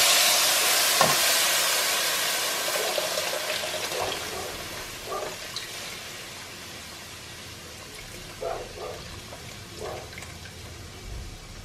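Black beans and their broth poured from a saucepan into a hot frying pan of browned rice: a loud sizzle that fades away over several seconds. A few short knocks of a spoon on the pot follow.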